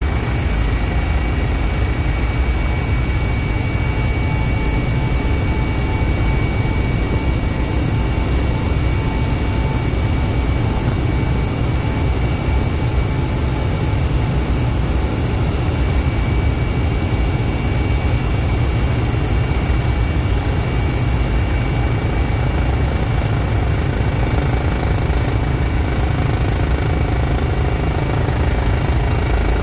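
Helicopter engine and rotor noise, a steady loud drone with a high turbine whine, heard from inside the cabin in flight.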